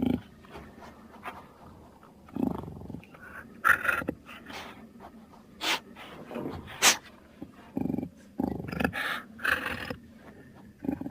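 Jaguar growling and snarling in a series of short, rough calls with pauses between, including two sharp, hissing bursts near the middle.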